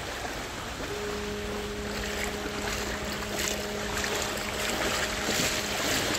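Shallow sea water sloshing and splashing around wading legs, with wind on the microphone. A steady low hum comes in about a second in and stops shortly before the end.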